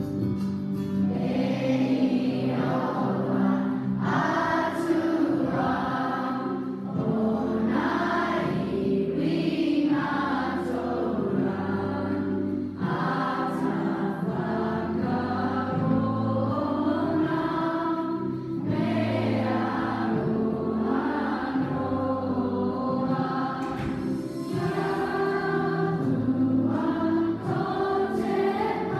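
Schoolchildren and teachers singing a song together as a group, with a strummed guitar accompaniment under the voices.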